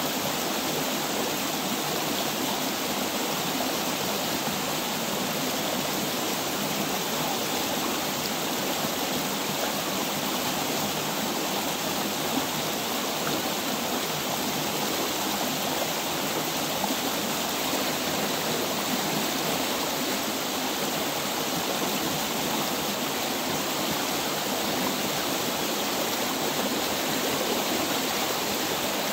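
Stream water flowing, a steady even sound.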